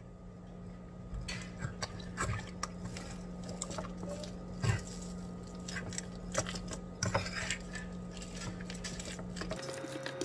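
Metal fork working a raw egg into a sticky tuna-and-tapioca dough in a ceramic bowl: irregular wet stirring and scraping, with scattered clicks of the fork against the bowl.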